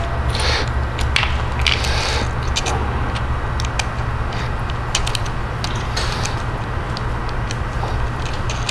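Small metallic clicks and clinks as a washer, lock washer and nut are fitted by hand onto a battery terminal post with cable ring terminals, over a steady low hum.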